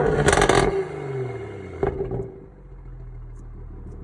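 BMW 440i's turbocharged straight-six, with an aftermarket downpipe and midpipe, dropping off a rev with a burst of exhaust crackle. A single sharp pop comes just before two seconds in, then the engine settles to a steady idle.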